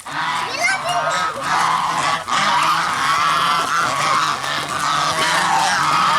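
Geese honking continuously, several birds calling over one another.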